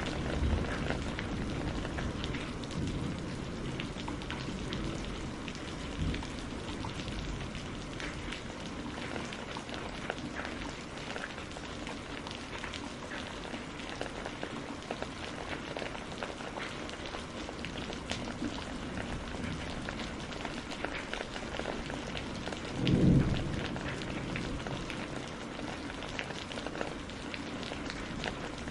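Steady rain falling on a greenhouse, with many individual drops ticking through it. About three-quarters of the way through comes a brief low rumble, the loudest moment.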